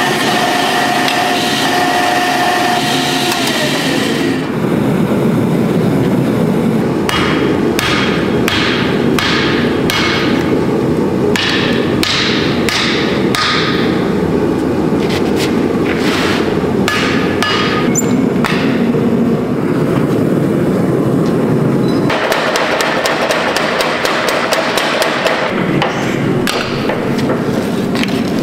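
Hydraulic press working on a red-hot Damascus steel hatchet, a steady whine that slides down in pitch about four seconds in. Then come repeated hammer blows on the hot steel over a steady mechanical drone, quickening into rapid strikes about two-thirds of the way through.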